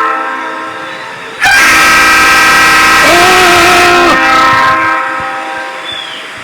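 Leslie RS3L three-chime train horn sounding a chord of steady tones. The tail of one blast fades away, then a second loud blast starts about a second and a half in. It holds for nearly three seconds and then trails off.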